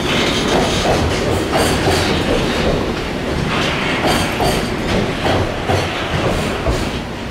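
Container flat wagons of a freight train rolling past, their wheels clattering over the rail joints in clusters that recur every second or two as each bogie passes.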